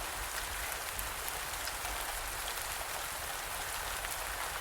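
Steady rain falling on a surface, an even hiss with faint scattered drop patter.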